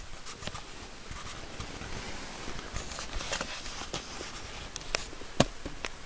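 Handling noise on a handheld camera's microphone during a slow pan: rustling with irregular small clicks, and one sharper click about five and a half seconds in.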